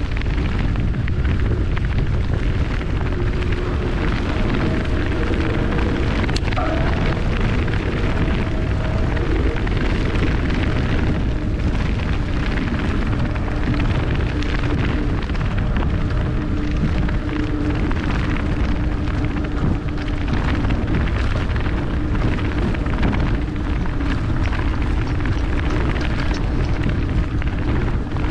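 Wind buffeting the microphone of a handlebar-mounted camera on a moving bicycle: a steady, heavy, low rumble, with a faint wavering hum underneath.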